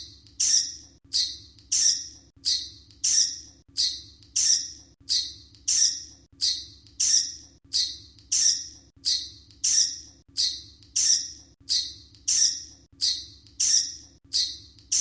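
Bat squeaking: short, sharp, high squeaks repeated at an even pace, about three every two seconds, over a faint low hum.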